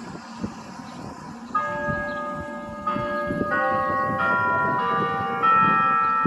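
Schulmerich NovaBell Gen 4 electronic church bells sounding from the tower's speakers: faint ringing at first, then from about a second and a half in a new bell at a different pitch is struck every half second to second, each ringing on so the tones pile up and grow louder.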